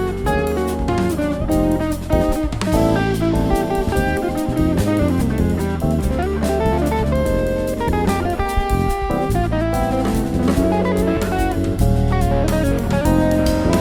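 Live instrumental jazz band playing: guitar lead over bass and drum kit.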